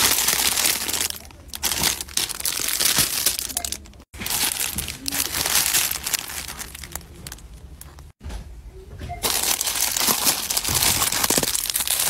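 Plastic and cellophane packaging crinkling as it is handled close up, broken by two abrupt dropouts about four and eight seconds in.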